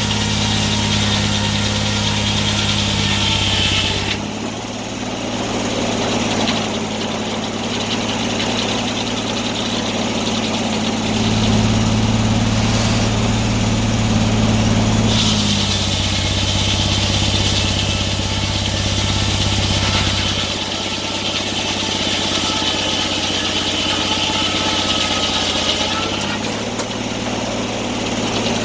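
Antique sawmill running under engine power, a steady mechanical drone whose note shifts about four seconds in, again around fifteen seconds and near the end, as the load on the mill changes.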